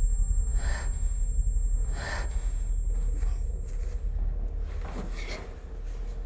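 A deep, low rumble that slowly fades, with a few short, soft hissing swells over it.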